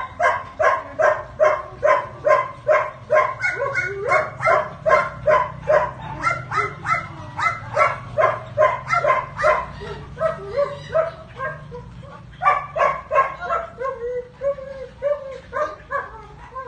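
Belgian Malinois barking rapidly and evenly, about three barks a second. The barking breaks off for a couple of seconds around ten seconds in, then resumes and trails into whines near the end.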